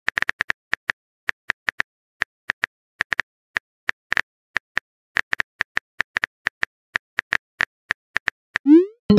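Phone keyboard typing sound effect: short, sharp taps, a few a second at an uneven pace. Near the end a quick rising 'bloop', the loudest sound here, marks a text message being sent.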